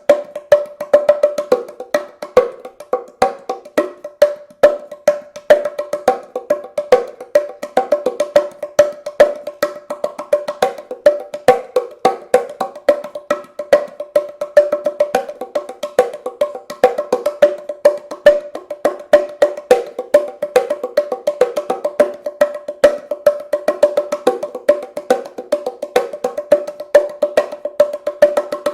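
Handmade wooden bongo cajon played by hand: a fast, continuous run of sharp slaps on its two playing surfaces, which ring at a higher and a lower pitch.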